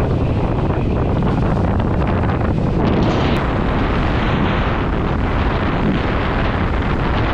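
Wind rushing and buffeting over an action camera's microphone while kitefoiling at speed, a loud steady rumble. It turns brighter and fuller about three seconds in.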